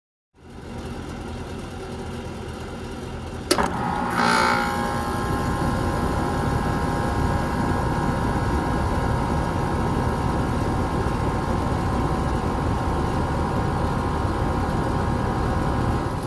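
1995 Rheem Classic X central air conditioner condensing unit starting up: a steady rushing sound, then a sharp clunk about three and a half seconds in as it kicks on, a brief surge, and it settles into steady running with a hum over the rushing noise.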